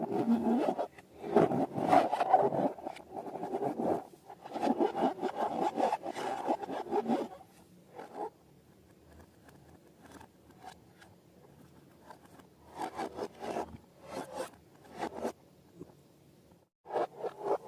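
Slime and rubber balloons being handled close to the microphone: bursts of rapid, crackly rubbing and scraping, which go quieter for several seconds about halfway through and then return in shorter bursts.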